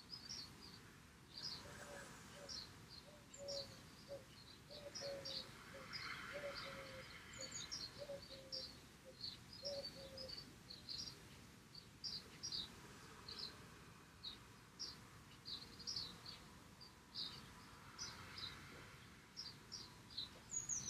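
Two slow, faint breaths of the Sitali cooling breath, drawn in over a curled tongue and let out through the nose, about six seconds in and again around eighteen seconds. Small birds chirp repeatedly throughout, and their short high chirps are the loudest sounds.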